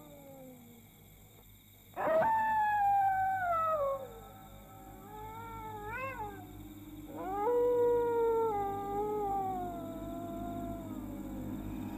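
Dog howling: a long falling howl about two seconds in, a short rising-and-falling wail about six seconds in, and another long howl from about seven seconds in, over a low steady hum.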